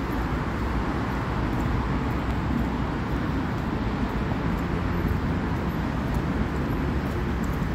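Steady road traffic noise as cars drive past.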